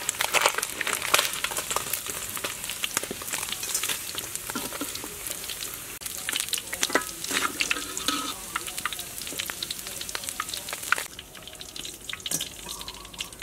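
Pieces of fish deep-frying in hot oil in a wok, crackling and spitting, while a spatula stirs them in the pan. The crackle thins out about eleven seconds in.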